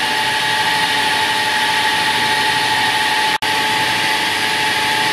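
Electric drive motor spinning the alternator of a light-aircraft electrical system training rig at speed, a steady high whine over a rushing noise. It breaks off for an instant about three and a half seconds in.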